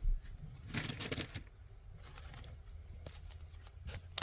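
Light rustling and scraping of a cardboard wax box being handled as a wax pack of baseball cards is worked out of it, with a soft bump at the start and a click at the end.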